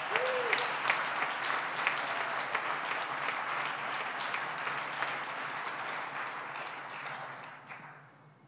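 Audience applauding, many hands clapping together, dying away about a second before the end.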